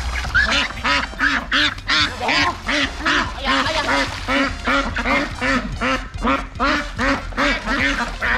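A domestic duck quacking over and over in a steady run, about two to three quacks a second.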